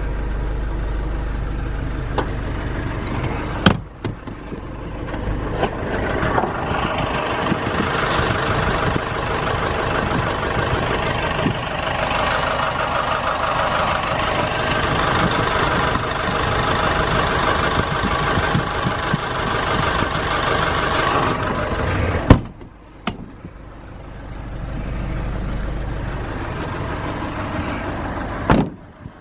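A Nissan NV350 Caravan's 2.5-litre diesel engine running steadily. It is broken by three sharp clicks, the loudest about two-thirds of the way in, after which the sound drops and changes.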